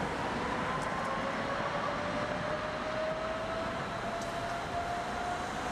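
Electric articulated tram running along street track, its traction motors giving a whine that rises slowly as it picks up speed, over steady rolling noise.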